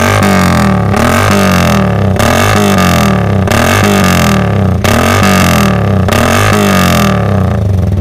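Yamaha V-Ixion's single-cylinder four-stroke engine breathing through a KJS P23 aftermarket racing exhaust, running loudly at idle and revved in about six quick throttle blips, each rising and dropping back to idle.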